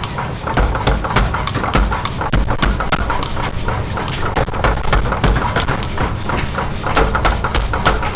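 Mechanical power hammer striking a hot iron workpiece, with repeated heavy thuds and sharp metal clanks.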